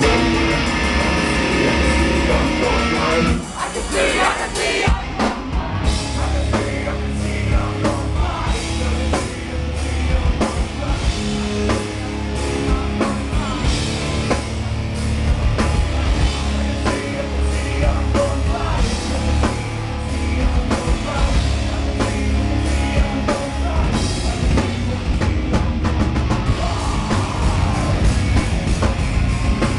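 Live heavy metal band playing loud: distorted electric guitars, bass and drum kit, with a singer's voice in the mix. The first few seconds ring out more openly, then about four seconds in the full band comes in with a dense, driving beat.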